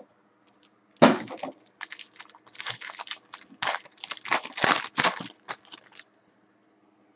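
Foil wrapper of a Panini basketball trading card pack crinkling and tearing as the pack is ripped open by hand and the cards are pulled out. It starts sharply about a second in and goes on in crackly handfuls until about six seconds in.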